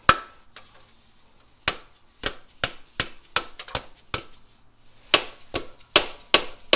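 Rubber mallet knocking on a 2011 Honda Pilot's oil pan to break it free of its sealant. About a dozen sharp knocks come in quick runs of two to three a second, with a pause after the first knock and another a little past halfway.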